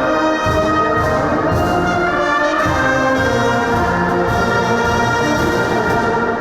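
Orchestral music led by brass, playing long held chords.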